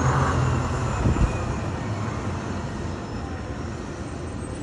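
City street traffic: a motor vehicle's engine rumble passing close and fading over the first couple of seconds, then a steady, quieter traffic hum.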